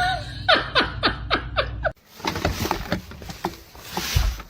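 A person laughing in about six short bursts, each falling in pitch. About two seconds in it cuts off abruptly to a steady hiss with scattered taps and clicks.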